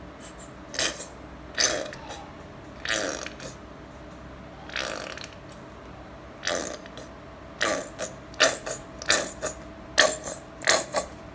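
Plastic TRESemmé shampoo bottle squeezed upside down into a mug of water, giving a series of short spurts as shampoo and air squirt out of the nozzle. A few spurts are spaced out at first, then they come quickly, several a second, in the second half.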